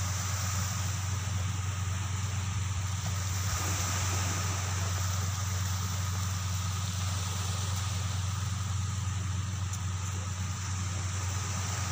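A steady, unchanging low mechanical hum with a thin, steady whine above it.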